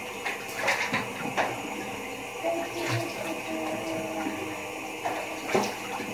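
Steady rush of running water, with a few faint knocks and brief snatches of voices over it.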